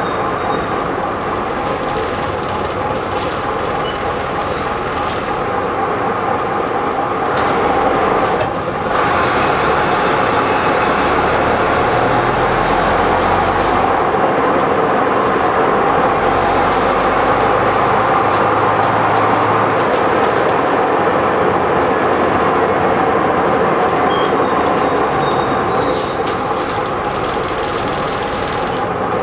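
Bristol VR double-decker bus heard from inside the saloon while under way: engine and drivetrain running with a steady whine, a brief dip about eight seconds in, then slightly louder, with a few sharp rattles and clicks from the body.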